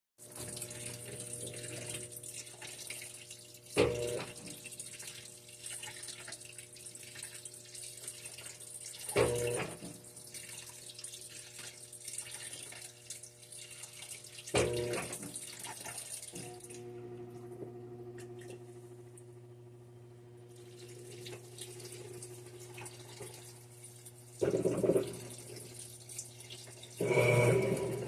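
Electrolux washing machine filling with water through its detergent dilution system: a steady rush of running water with a brief thump about every five and a half seconds. About halfway through the water stops, leaving a steady machine hum, and louder mechanical bursts come near the end.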